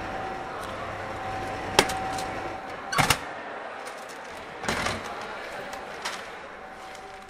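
Snack vending machine dispensing: the machine hums, there is a click, then a sharp thump a little after halfway through the first half as the packet drops into the tray. The pickup flap is then pushed open with a rattle as the packet is pulled out, and a click follows near the end.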